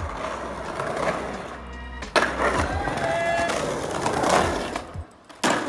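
Skateboard wheels rolling over rough concrete paving, a continuous gritty rumble that gets abruptly louder about two seconds in.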